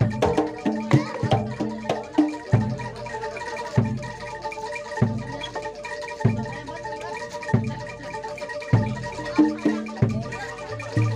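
Javanese gamelan music accompanying a kuda lumping dance: tuned metal mallet instruments play a quick repeating melody over a low beat that falls about every second and a quarter.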